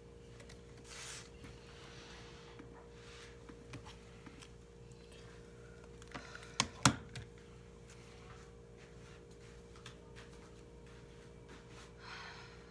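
Sparse computer-keyboard clicks over a steady low room hum, with two sharper, louder clicks a little before the middle and soft rustling about a second in and near the end.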